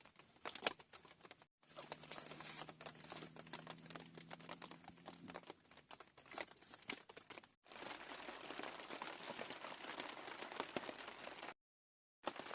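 Rain pattering on tent fabric, with the material crinkling, in several short cuts separated by brief silences. A faint low hum runs for a few seconds in the first cut.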